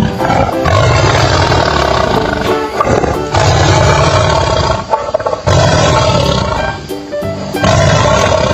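A big cat roaring repeatedly, about four roars of one to two seconds each, over children's background music.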